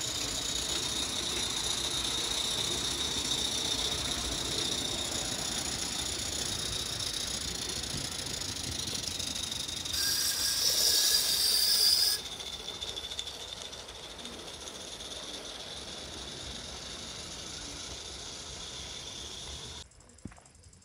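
Live-steam model locomotive running with a steady hiss of steam. About ten seconds in, a louder rush of steam lasts about two seconds, then the hiss settles back and cuts off near the end.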